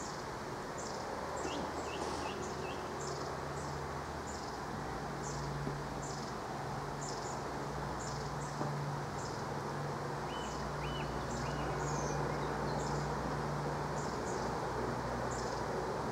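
Steady rain falling on trees and the pond, with a small bird giving short, high calls over and over, about once or twice a second, and a low steady hum underneath.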